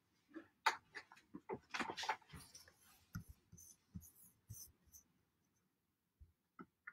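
Faint scattered clicks, taps and rustles of small objects being handled, busiest in the first five seconds and thinning to a couple of light ticks near the end.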